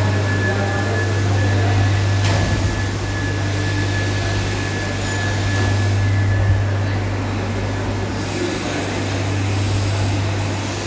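Steady low hum of electric machinery running in a recirculating aquaculture fish-farm shed, the system's pumps, aeration and fans, with a faint high whine that fades out about halfway. A single light knock about two seconds in.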